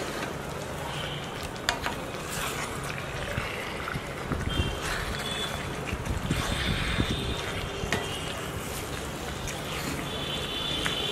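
Wooden spatula stirring a thick chicken curry gravy in a metal kadai on the stove, the wet gravy squelching and sizzling as the pieces are turned. There are a couple of sharp knocks of the spatula against the pan.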